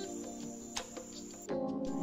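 Soft background music of steady held tones, with a few faint clicks; the music changes abruptly about one and a half seconds in.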